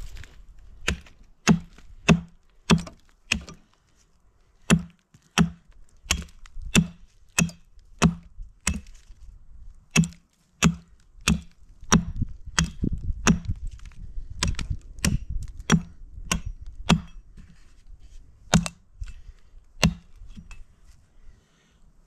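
A hatchet striking an upright wooden stake over and over, about one blow every two-thirds of a second, each a sharp knock with a short low ring from the wood, with a couple of brief pauses, the blows stopping shortly before the end.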